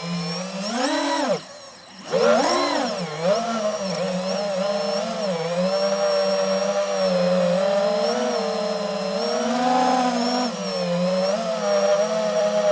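DJI FPV drone's motors and propellers whining, the pitch rising and falling as the throttle changes. The sound drops away for about half a second near the start, then surges back up.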